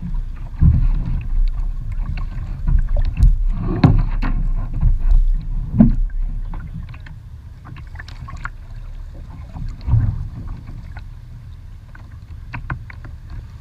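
Knocks and scrapes on a plastic sit-on-top kayak hull as a person climbs aboard and settles in, picked up through a camera mounted on the bow, over a low rumble. After about six seconds it goes quieter as paddling begins, with scattered light knocks and one louder thump around ten seconds in.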